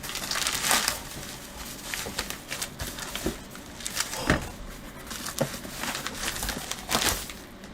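Box packaging crinkling and rustling as it is handled and opened, with scattered short clicks and knocks; the loudest come about a second in, about four seconds in and near the end.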